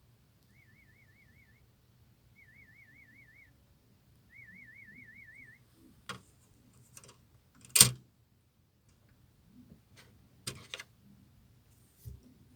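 Audiometer warble tones in a play-audiometry hearing test: three short, fairly high wavering beeps, each a little louder than the last. They are followed by clacks and knocks of toys being put down, the loudest a sharp knock about eight seconds in.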